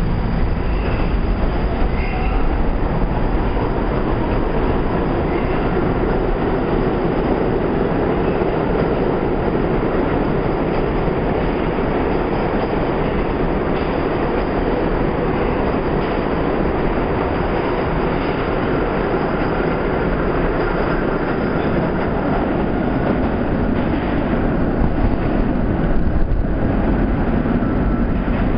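New York City Subway R32 train, Budd-built stainless-steel cars, pulling out of the station and gathering speed, with a steady, loud rumble of its wheels running on the rails.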